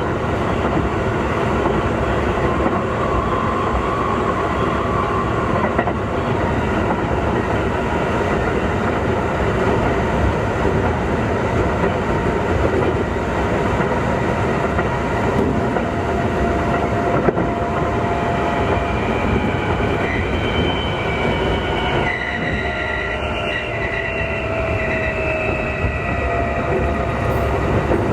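Running sound inside a Keikyu 2000 series electric train car (DeHa 2052): steady wheel-and-rail rumble with some clickety-clack. In the second half, the whine of its traction motors comes in, a set of tones slowly falling in pitch. This car's motors, which the uploader takes to be Mitsubishi-made, give a distinctive groan at low speed under power and braking.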